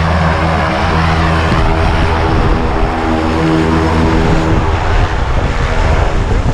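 Single-engine propeller jump plane running on the ground, its engine and propeller giving a loud, steady, even-pitched drone that grows rougher near the end.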